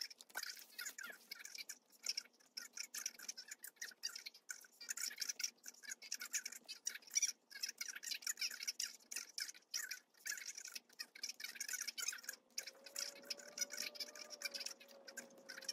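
Pen scratching on paper as notes are written by hand, a quick, irregular scratching. A faint steady tone comes in about twelve seconds in.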